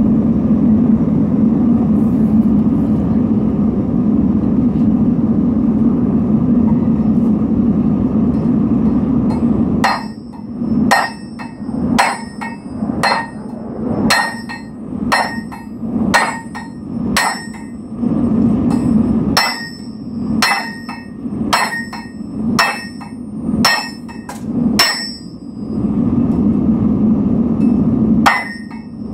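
Steady roar of a gas-fired melting furnace and its blower; about ten seconds in, a hammer starts beating a heated steel nail spike, a run of ringing metal blows about two a second for some fifteen seconds, then the furnace roar alone again with one more blow near the end.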